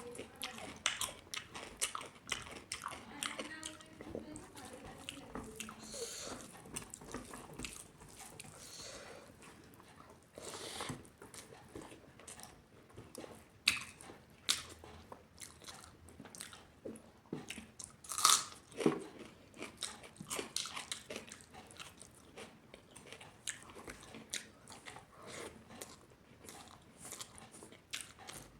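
A person eating close to the microphone: chewing and crunching food with many short wet mouth clicks, a few bites louder than the rest.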